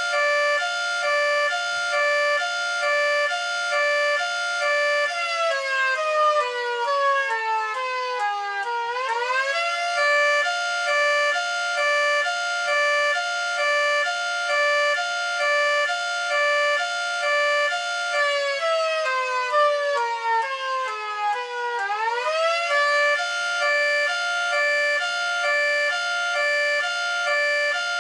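Miniature replica of a Federal Signal Thunderbolt 3T22 siren sounding an undulating hi-lo: two tones alternating about every half second, while twice the whole pitch sags for about four seconds and then sweeps quickly back up.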